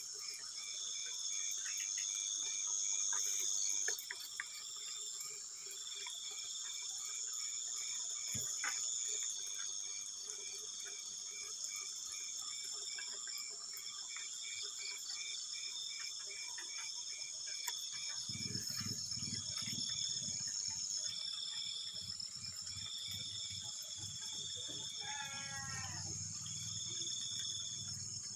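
A chorus of crickets and other night insects, several steady high-pitched trills with fast pulsing, overlapping in layers. From about two-thirds of the way in, a low rumbling noise joins it, and near the end there is a brief wavering call from another animal.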